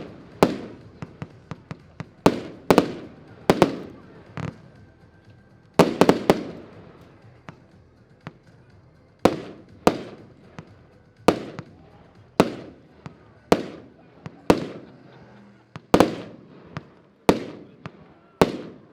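Consumer fireworks compound battery (Diamond No 1, 326 shots) firing: sharp bangs of breaking shells, roughly one a second, each with a trailing echo, with quick clusters of several reports at the start and about six seconds in.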